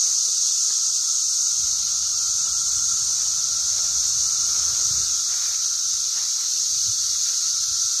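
Large chorus of periodical cicadas (newly emerged) calling together: a loud, steady, high-pitched drone with a fainter lower steady tone beneath it.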